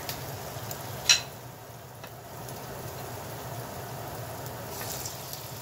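Akra, a grated-malanga fritter, frying in hot oil in a saucepan: a steady sizzle with small crackles. A single sharp click about a second in.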